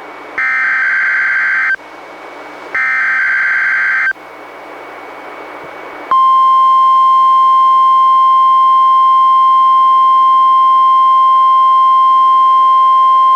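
NOAA Weather Radio required weekly test, received on a weather radio. First come two bursts of SAME digital header data, each about a second and a half of harsh data tones, with radio hiss after them. About six seconds in, the single steady 1050 Hz warning alarm tone begins and holds.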